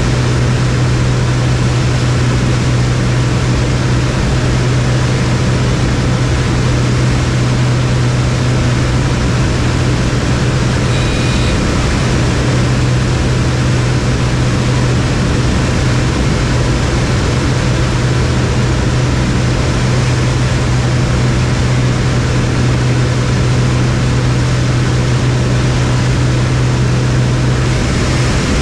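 Cessna T188C Ag Husky's turbocharged six-cylinder engine and propeller running steadily at working power, with a deep, even drone and air rush heard from inside the cockpit. The aircraft is flying a spray run with a heavy load of chemical.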